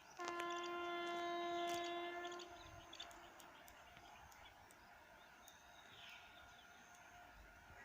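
WAP7 electric locomotive's horn sounding one steady blast of about two seconds, then a quiet outdoor background with faint bird chirps.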